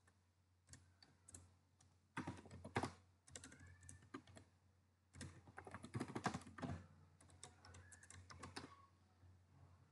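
Computer keyboard typing, faint, in several short bursts of keystrokes with pauses between them.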